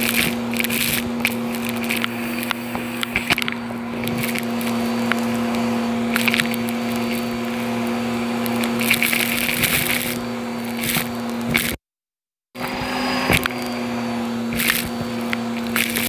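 Vacuum cleaner with a dusting-brush attachment sucking up dirt and debris from a carpet: a steady motor hum, with crackling and rattling as grit and small bits are pulled through the hose. The sound cuts out for about a second two-thirds of the way through, then resumes.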